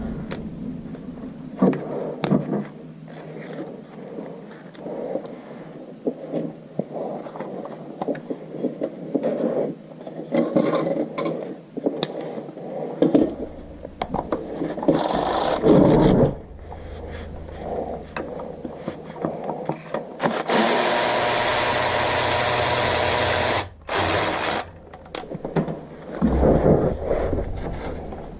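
Tools knocking and scraping on metal during car repair work, with a power tool running steadily for about three seconds near the end before stopping abruptly.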